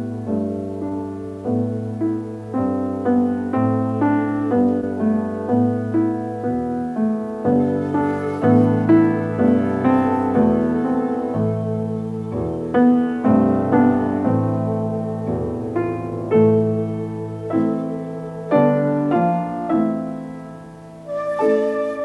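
Ambient new-age music: a piano plays a flowing stream of notes over a long held, wavering tone, easing to a short lull near the end before a new phrase begins.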